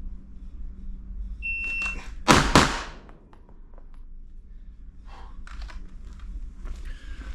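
A shot timer's short start beep, then two pistol shots fired in quick succession as a double tap, about a third of a second apart.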